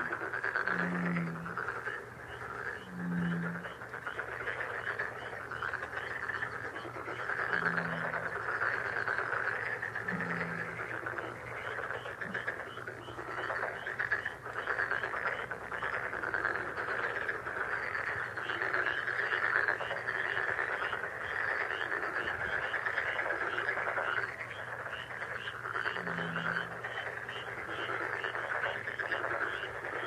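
Countryside ambience: a continuous chorus of frogs calling, with fast repeated chirps over it and a deep, short croak five times, four of them in the first ten seconds.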